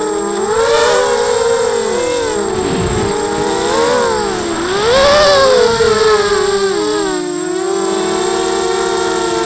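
Brushless motors and propellers of a ZMR 250 mini quadcopter whining in flight, heard from the onboard camera. Several pitches rise and fall together as the throttle changes, dipping about three seconds in and climbing about two seconds later.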